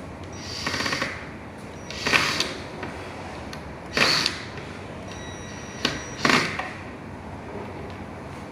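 Short mechanical clatters and rattles, about five of them a second or two apart, over a steady background hiss: tools and device parts being handled during disassembly.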